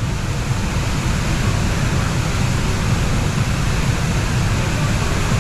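Waterfall roaring: a steady, loud rush of falling water.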